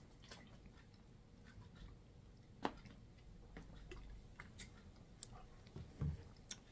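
Faint clicks and crinkles of a plastic water bottle being handled and drunk from, with one sharper click about two and a half seconds in and a soft thump near the end.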